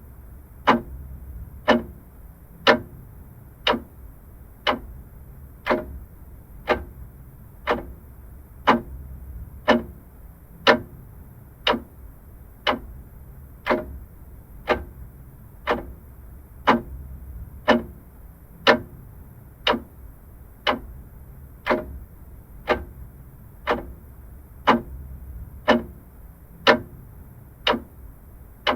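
Vintage clock ticking steadily, about once a second, with a faint low hum beneath.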